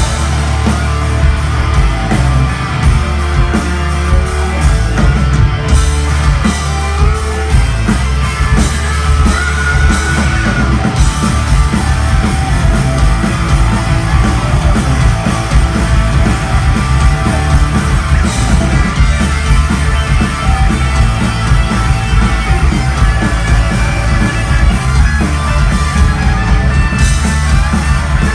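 Rock band playing live at full volume: electric guitars, bass guitar and drums.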